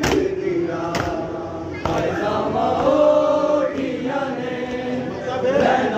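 Crowd of men chanting in unison in long sung lines, with sharp hand-on-chest matam strikes about once a second during the first two seconds.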